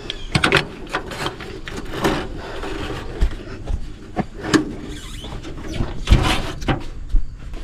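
Metal parts and wiring in a 1966 Ford F350's engine bay being handled: scattered clicks, taps and scrapes, with a few dull thumps.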